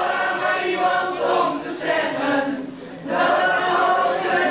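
A group of mixed young voices singing together in chorus, holding long notes, with a short break between phrases about three seconds in.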